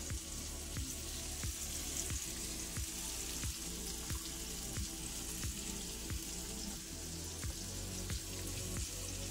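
Background music with a steady beat and bass line, over a steady sizzle of vegetables sautéing in a frying pan.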